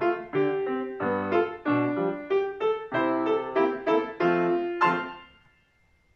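Grand piano played solo: a quick run of struck notes, ending on a last chord about five seconds in that rings and fades away.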